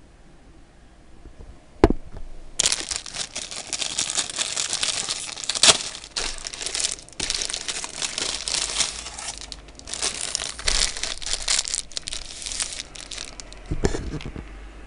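Plastic bread wrapper being opened and crinkled as the roll is pulled out: dense crinkling with sharp crackles through most of the stretch, after a single sharp click about two seconds in.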